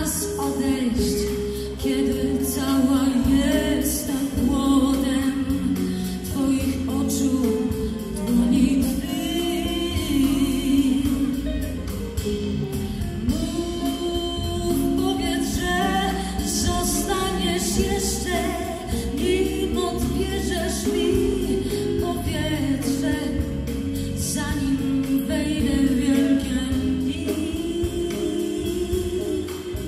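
Live band performance: a woman sings lead over electric guitar, bass guitar and a drum kit with cymbals.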